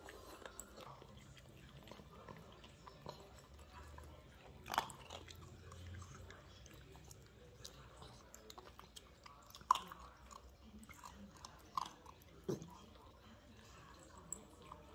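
Eight-week-old Labrador puppy chewing and crunching dry kibble from a bowl: faint chewing with scattered sharp crunches, the loudest about a third of the way in and again about two thirds in.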